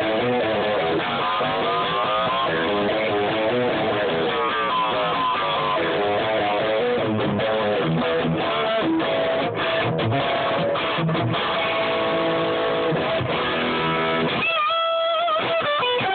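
Electric guitar played through a Line 6 M9 pedal's flanger with its jet-plane sweep: fast riffs and shred runs, the flanger's whoosh sweeping up and down. Near the end a held note wavers with vibrato.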